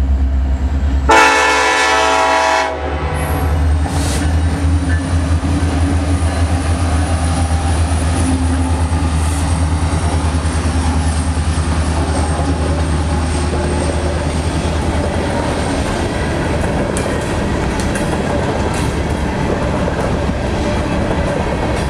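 Norfolk Southern EMD SD70ACe diesel locomotive sounding one horn blast of about a second and a half, starting about a second in. The horn is laid over the engine's deep rumble as the train passes. After about fifteen seconds the engine rumble eases and the rolling train cars carry on by.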